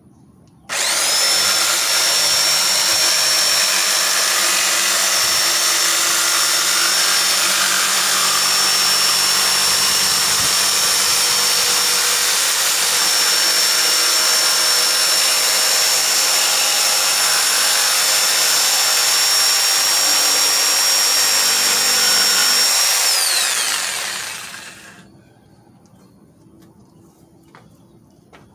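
Porter-Cable corded jigsaw starting up about a second in and cutting steadily through the edge of a wooden table top, with a high steady whine over the sawing, for over twenty seconds. Near the end the motor stops and winds down.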